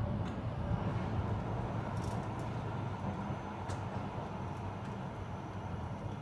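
Electric drive of a Novoferm Trafimatic Plus tilting garage door running as the door panel swings up and open: a steady low mechanical rumble with a few faint clicks.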